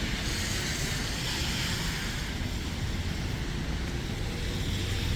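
Steady noise of road traffic on a snowy street, a low rumble with a tyre hiss.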